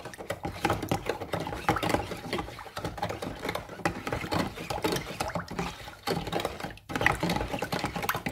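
Metal teaspoon stirring salt into water in a plastic tub, scraping and clicking quickly against the bottom and sides as the salt dissolves into a strong brine. It pauses briefly near the end.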